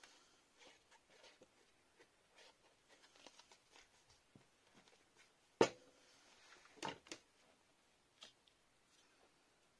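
Quiet handling of card stock and paper: faint rustles and small taps as designer paper is pressed onto a card, with one sharp knock a bit over halfway through and a few lighter clicks just after.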